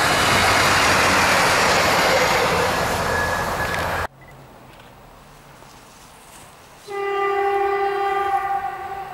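Ex-NS Wadloper diesel railcar (SKPL SN83) passing close by, with loud engine and wheel noise that cuts off suddenly about four seconds in. After a quiet stretch, an approaching railcar sounds its horn about seven seconds in, a single steady blast of about a second and a half.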